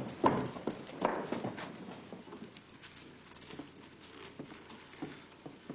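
Horse's hooves clip-clopping: a few loud hoofbeats at first, then fading away over the next couple of seconds.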